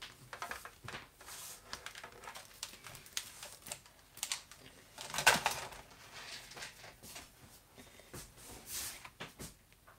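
Irregular light clicks, taps and rustles of small things being handled off-camera, with one louder clatter about five seconds in.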